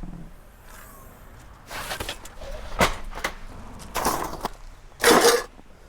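Irregular rustles and knocks of camping gear being handled, with a few sharp clicks; the loudest rustle comes about five seconds in.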